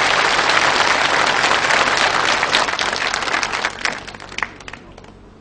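Theatre audience applauding: dense clapping that thins to scattered single claps and dies away about four seconds in.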